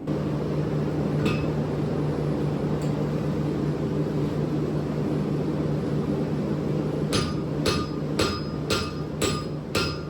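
A steady hum of equipment running, then, from about seven seconds in, hammer blows on hot solid steel bar stock, about two a second, each with a metallic ring, as the bevelled end is squared up and textured.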